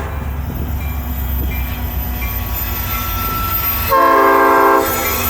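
Locomotive air horn sounding one short blast of several tones at once, about four seconds in and lasting just under a second, over the steady low rumble of the train.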